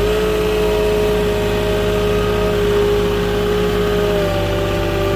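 Moffett truck-mounted forklift's engine running steadily, with a steady whine over the engine note, while the forklift is moved into place with a pallet. The whine shifts slightly about four seconds in.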